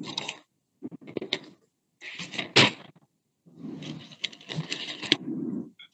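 Pages of a Bible being leafed through and handled: a series of irregular papery rustles with a few light clicks.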